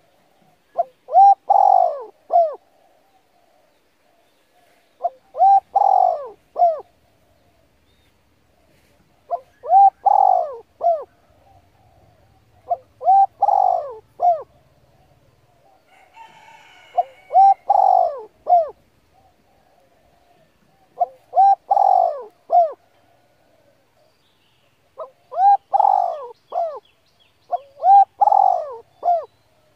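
A bird cooing in short phrases of three or four notes, the phrase repeated eight times at roughly four-second intervals.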